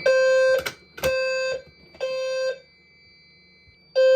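Fire alarm horns sounding the temporal-three evacuation pattern: three half-second low-pitched blasts, a pause of about a second and a half, then the pattern starting again. This is the sign of the system being in alarm after a manual pull station was pulled. A steady high beep sounds underneath.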